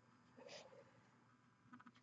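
Near silence: faint room tone, with one brief soft rustle about half a second in and a few faint ticks near the end.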